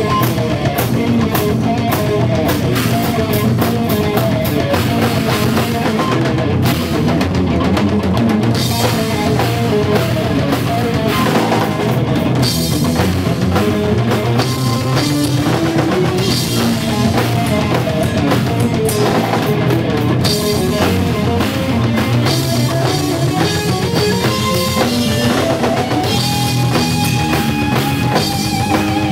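Live instrumental jazz-rock fusion band playing loudly: electric guitar over a full drum kit with bass drum, without vocals.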